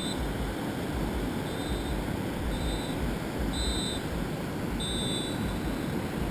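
Surf washing up the beach with wind rumbling on the microphone, and four short, high beeping tones about a second apart from an unseen source.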